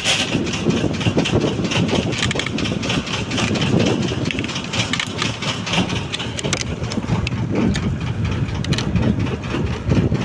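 Fishing boat's engine running steadily, a low continuous drone with no change in speed.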